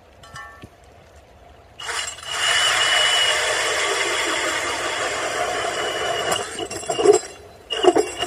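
Cordless drill spinning an ice auger through lake ice. It starts about two seconds in and grinds steadily with a thin, high motor whine. Near the end it runs in a few short spurts.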